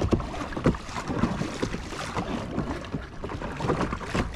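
Kayak paddling on calm water: irregular paddle splashes and water slapping against the hull.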